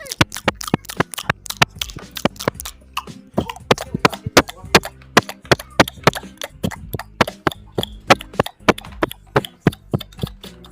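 Close-miked crunchy chewing and biting: a rapid, irregular run of sharp, crisp crunches and cracks, several each second.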